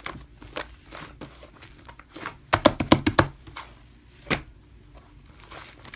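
Hands playing with slime: soft squishing and sticky crackling pops, with a quick run of sharp crackles about halfway through and one more single pop a second later.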